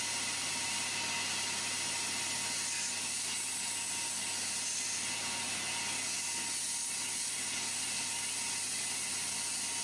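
Milling machine cutting a slot with a four-flute end mill, running steadily, with a continuous hiss from a light air jet blowing the chips out of the cut.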